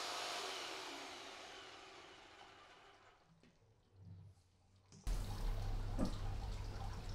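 Jigsaw mounted under a homemade jigsaw table, running with a plastic-cutting blade, is switched off about half a second in; its motor winds down with falling pitch over the next two to three seconds to near silence. About five seconds in, a low steady hum and a few light clicks start.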